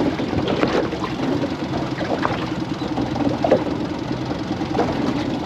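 Boat's outboard motor idling at trolling speed, a steady fast-pulsing hum, with a few light knocks over it.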